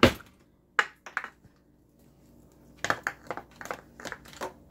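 Paper wrapper of a butter stick crinkling as it is peeled off by hand, a run of short crackles, with a sharp knock at the start and a few more clicks about a second in.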